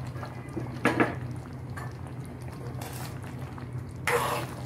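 Thick curry gravy bubbling in an aluminium pot, with a sharp knock about a second in. Near the end a metal spoon scrapes and stirs through the gravy.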